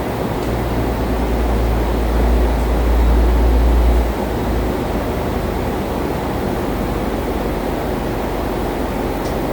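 A steady machine rumble with a hiss over it. A heavier low rumble is there at first and drops away about four seconds in.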